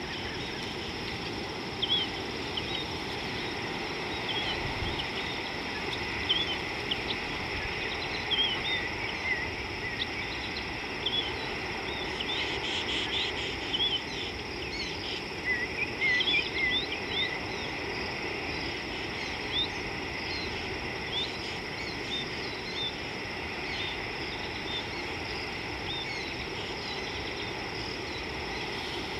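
Small birds chirping and twittering in many short, quick calls, over a steady outdoor hiss with a high insect-like drone. The chirps thin out in the last few seconds.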